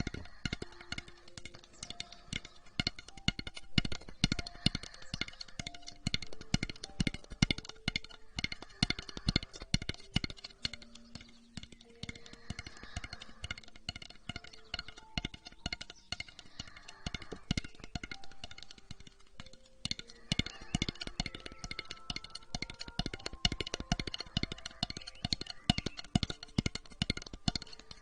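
Soft background music playing a slow melody of single plucked notes, over dense, irregular close-up clicking and crackling from ASMR trigger sounds handled right at the microphone.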